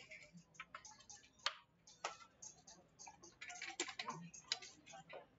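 Backgammon checkers clicking against the board and against each other as pieces are picked up and set down. One sharp click comes about a second and a half in, and a quick run of clicks about three and a half seconds in.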